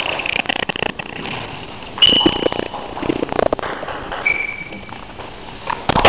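Table tennis rally: a quick series of sharp clicks as the celluloid ball strikes the table and the players' bats, with a few short high squeaks.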